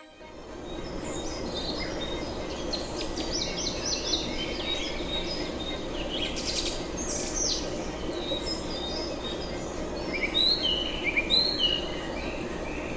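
Many birds chirping and calling over a steady background hiss. A cluster of louder, downward-slurring calls comes about ten seconds in.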